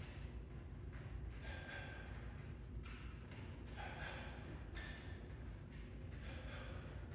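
Sharp, forceful exhales in time with shadow-boxing punches, coming every second or so in short irregular bursts over a steady low hum.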